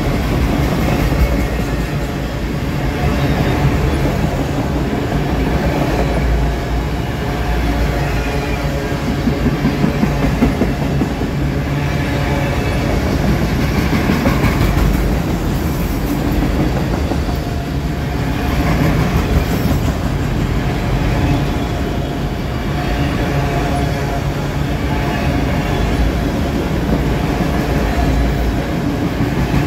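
Freight train of autorack cars rolling past close by: a steady rumble and clatter of steel wheels on the rails.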